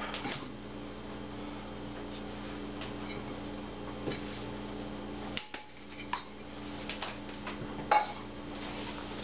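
A spatula scraping and knocking against a stainless steel mixing bowl as potato salad is folded, with scattered clicks and a louder knock near the end. A steady low hum runs underneath.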